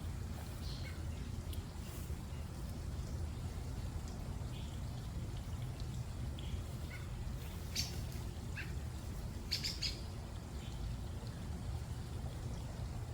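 Small birds chirping a few short, high calls, with a cluster of chirps about two thirds of the way in, over a steady low rumble.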